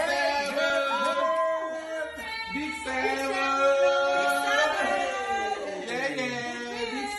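A song with voices singing held and gliding notes.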